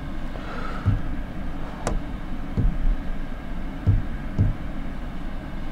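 A steady low rumble with several dull thumps and one sharp tap about two seconds in, the sound of handling and tapping at an interactive whiteboard.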